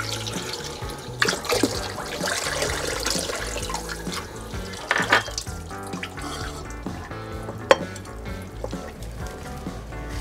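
Tap water running into a small porcelain bowl as dried shrimps are rinsed by hand, over background music; the running water fades after the first few seconds. A few sharp knocks come through, the loudest near the end.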